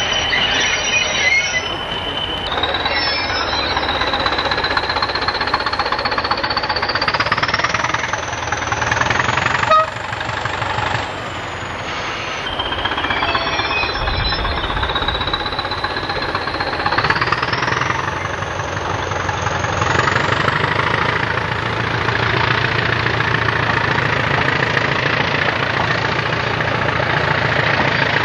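Class 20 diesel locomotive 20170's turbocharged English Electric engine working hard as it pulls a passenger train away. Its high turbocharger whistle rises in pitch twice, over the rumble and clatter of the engine and train.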